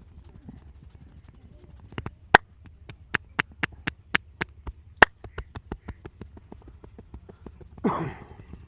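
Rhythmic hand strikes of a percussive head massage: a run of sharp taps, about four a second, from about two seconds in until about seven. A short, louder noisy sound follows near the end.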